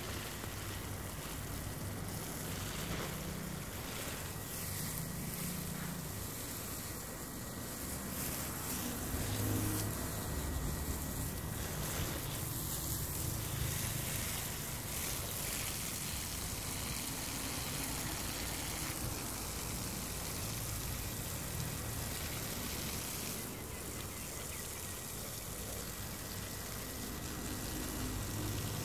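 Water from a garden hose spraying steadily onto potted plants and soil.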